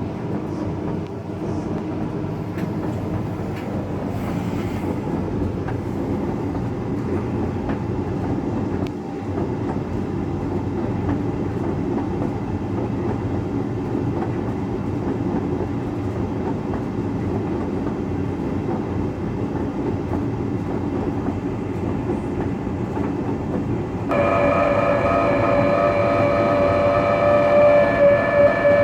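Hoover Dynamic Next tumble dryer running with a steady rumble. About 24 seconds in, a louder, high squeal with several steady tones sets in and holds: the horrible sound whose cause the owner does not know.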